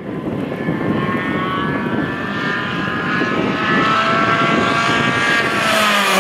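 Rally car engine held at high revs as the car approaches flat out, getting louder with a slowly rising pitch that dips slightly near the end as it passes close. Under it is a steady hiss of tyres throwing spray off the wet tarmac.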